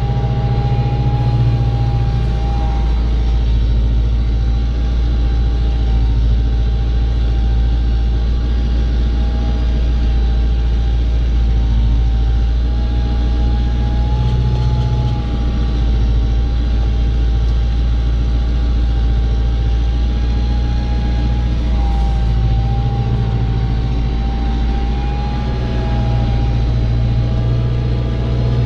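Tractor diesel engine running steadily under ploughing load, its pitch wavering only slightly.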